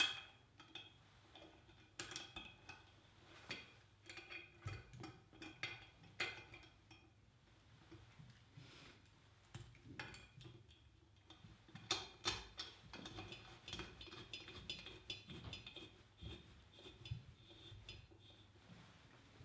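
Faint, irregular clinks and taps of metal parts being handled, in several small clusters, as a filter capsule is fitted onto the lid of a stainless steel pressure vessel.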